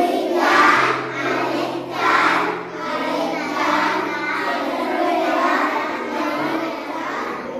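A class of young children calling out answers together, many overlapping voices in loud surges about every second and a half, over soft background music.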